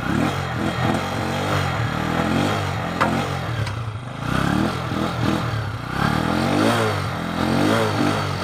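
Euro 150 motorcycle's single-cylinder four-stroke engine revved up and dropping back, about five throttle blips in a row, with the choke off. It picks up and keeps running rather than stalling, the sign that the cleaned carburetor now works.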